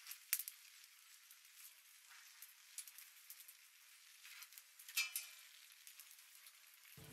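Chicken kebabs and tomatoes on wooden skewers sizzling faintly over the glowing embers of a clay oven, with scattered small crackles and pops, the sharpest about five seconds in. The sound is thin, with no low end.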